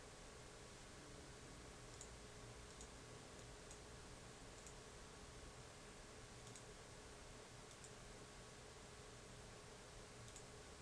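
Near silence: faint room hiss with a low steady hum, broken by about seven faint, sharp computer mouse clicks spread through it.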